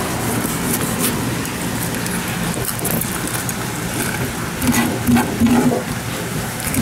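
Small knife scraping and cutting through a rockfish on a wooden cutting board, with short scratchy clicks, over steady street noise.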